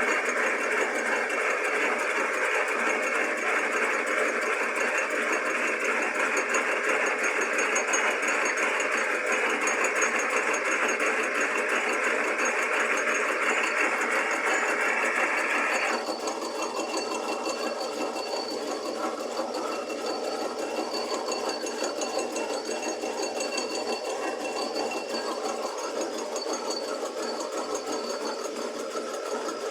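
Drill-press milling head and lathe running under power feed, the cutter milling the face of a small-block Chevy cylinder head with a steady mechanical whirr and cutting noise. About halfway through, the higher cutting noise drops away suddenly and the machine runs on more quietly.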